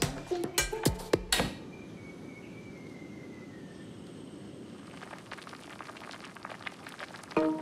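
A stone mortar knocked and scraped against the rim of a metal pot as spice paste is tipped in, a handful of sharp knocks in the first second and a half. Then the steady hiss of a gas burner flame, and from about five seconds the pot of chicken heads simmering in its bacem braise with a fine bubbling crackle.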